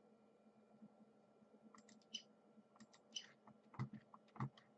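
Faint, scattered clicks of an iMac G3's mouse and keyboard being worked, coming more often and louder in the second half, over a faint steady computer hum.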